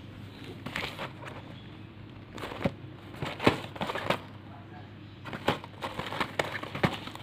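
Cardboard box of TUC biscuits handled and turned over in the hands, giving a string of sharp taps and knocks, the loudest about halfway through, over a low steady hum.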